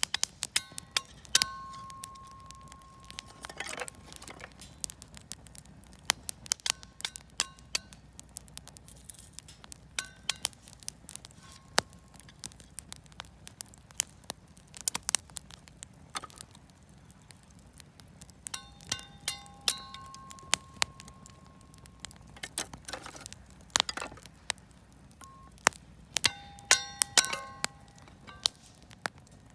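Campfire of scrap wood and firewood crackling, with irregular sharp pops and snaps throughout. Short clear clinking, ringing tones come through a few times, about a second in, around twenty seconds in, and near the end.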